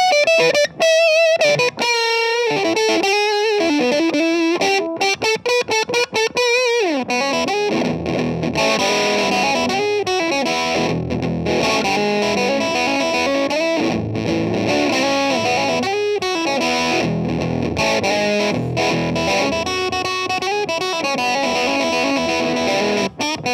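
Electric guitar through overdrive and distortion pedals playing a blues-rock lead: single notes bent and shaken with vibrato, a slide down about seven seconds in, then a denser riff of chords and notes. It is a smoother early distortion tone, in the manner of a Les Paul played through a loud Marshall.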